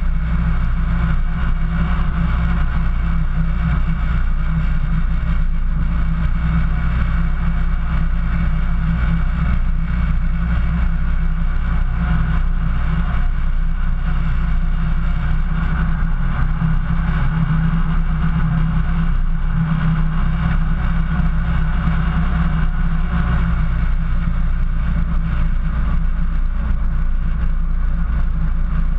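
Off-road 4x4's engine running steadily at an even pace, with no revving, heard close through a camera mounted on the vehicle's body.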